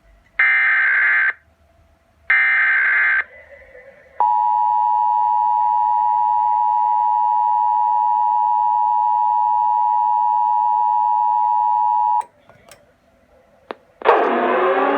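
Emergency Alert System broadcast: the last two of the three warbling SAME digital header bursts, then the steady two-tone EAS attention signal (853 and 960 Hz together) for about eight seconds, ending abruptly. After a couple of faint clicks, a siren starts winding up near the end.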